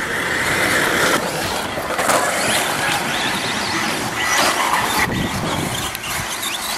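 A pack of radio-controlled racing trucks running flat out on a dirt track, their motors giving a loud, high-pitched whine. The sound swells and falls as the trucks pass.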